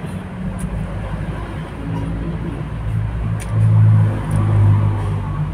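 Low, steady motor drone that grows louder about three and a half seconds in and eases off near the end, with a few faint clicks.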